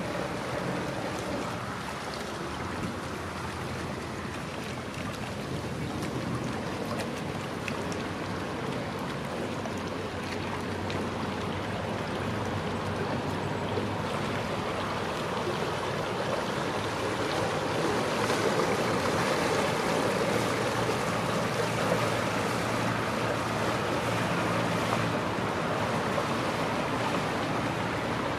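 River water lapping, with wind on the microphone, over the low steady hum of motor cruisers' engines, which grows louder a little past the middle.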